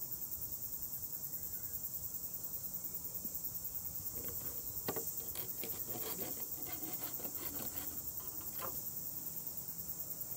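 Steady high-pitched chirring of insects, pulsing rapidly. From about four seconds in, scattered clicks and knocks from bamboo being handled.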